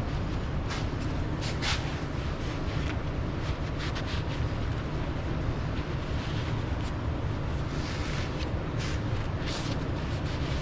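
Brake cleaner sprayed from an aerosol can onto a wheel hub spindle in short hissing bursts, with wiping between them, over a steady low hum.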